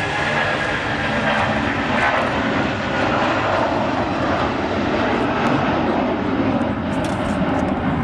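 Icelandair Boeing 757's twin turbofan engines at take-off thrust as the jet lifts off and climbs out: a loud, steady jet rumble, with a high whine that fades out about two seconds in.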